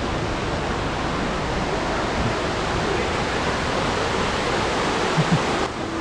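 Steady rush of stream water flowing over rocks, with two short soft knocks about five seconds in. Background music comes in just before the end.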